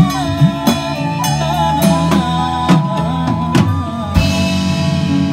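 Live acoustic band music: a male singer's vocal over acoustic guitar and hand-played percussion, with regular drum hits. About four seconds in the vocal line ends and the band holds a sustained chord.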